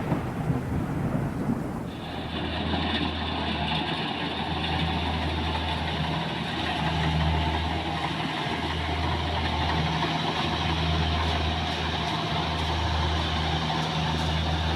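Kubota DC-70 combine harvester's diesel engine running steadily and smoothly. The first couple of seconds hold a low rumbling noise, then the engine's even hum comes in and holds.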